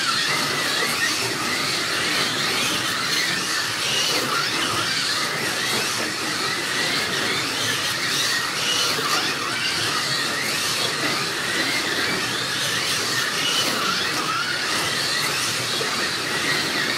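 Several slot cars' small electric motors whining as they race around the track, their high pitch rising and falling as the cars speed up and slow down through the turns, over a steady hiss.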